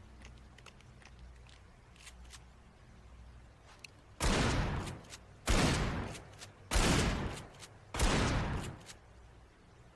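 Pump-action shotgun fired four times, about one and a quarter seconds apart, each shot a sharp blast that dies away over about half a second.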